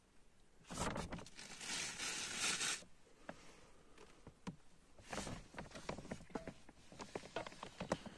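A spoon stirring in a metal mug, clinking and scraping against the side in a quick run of small ticks. Before it, about a second in, there is a loud rustling noise lasting about two seconds.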